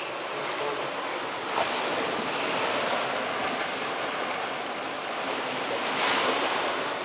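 Ocean surf washing onto a beach, a steady rush that swells about a second and a half in and again near the end.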